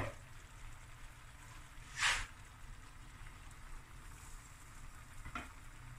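Cooked basmati rice tipped from a bowl into a steel pot of seafood: one soft swish about two seconds in, and a faint tap near the end, over a low steady rumble.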